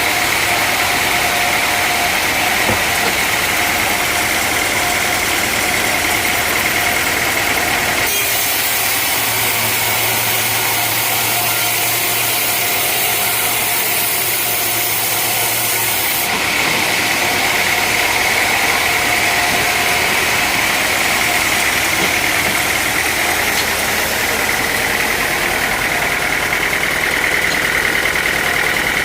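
Sawmill machinery running steadily with a constant whine. For about eight seconds in the middle the sound switches abruptly to a brighter hiss with a low hum, then switches back.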